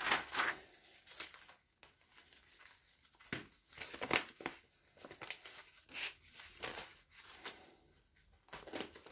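Sheets of A4 office paper rustling and flapping as a stack is leafed through by hand, in short irregular rustles, loudest right at the start.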